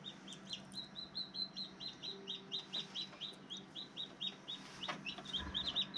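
Newly hatched chicks peeping inside an egg incubator: a rapid, even run of short high peeps, about five a second, over a low steady hum.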